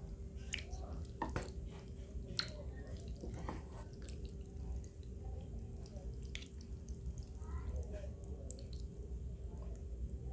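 Thick pine nut broth dripping and slopping as kalguksu noodles are lifted and stirred in a wooden bowl, with scattered light clicks and taps of wooden chopsticks and spoon, over a steady hum.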